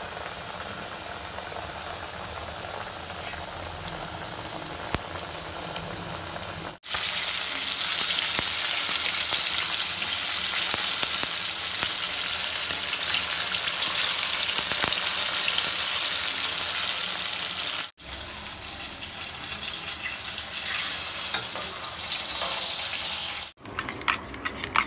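Flour-coated chicken pieces deep-frying in hot oil in an aluminium pot: a steady sizzle that gets louder about seven seconds in and drops back after about eighteen seconds. Near the end, a utensil clicks and scrapes in a glass bowl of mayonnaise sauce being stirred.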